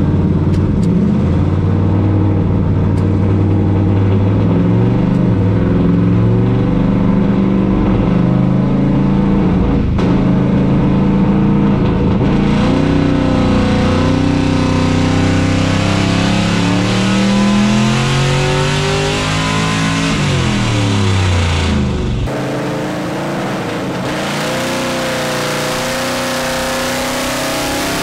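Twin-turbo 427 cubic-inch LS V8 making a dyno pull, very loud inside the cab: the engine holds at lower revs, then the revs climb steadily for several seconds under full load and fall back off about twenty seconds in. At about 22 seconds the sound changes abruptly to a quieter, steadier engine note with a hiss.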